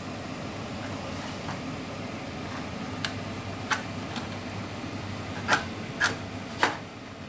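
Cooker extractor fan running with a steady hum, and several sharp clicks over the second half, the loudest three close together near the end.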